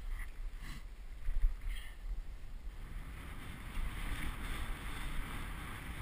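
Wind buffeting a helmet-mounted camera's microphone as a skier runs through deep powder, with the skis hissing through the snow. There are a few louder gusts in the first two seconds, and the hiss thickens from about halfway through.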